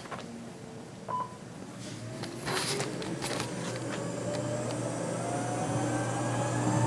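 NordicTrack Commercial 1750 treadmill starting up: a short beep and a few clicks, then the drive motor and belt spinning up with a whine that rises slowly in pitch and gets louder.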